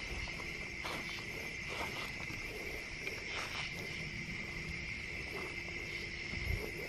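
A steady, high-pitched chorus of night insects trilling in the grass, with faint footsteps through the grass.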